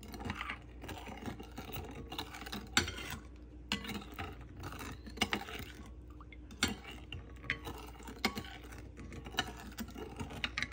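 Metal serving spoon stirring milk and oil in a glass mixing bowl, clinking and scraping against the glass in quick irregular ticks, a few of them louder.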